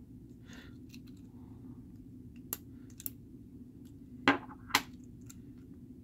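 Neodymium magnets clicking against each other and the toy car. A hard-drive magnet on its metal bracket meets the small magnet on the car's front. A few light clicks come first, then two sharp clacks about half a second apart a little past four seconds in.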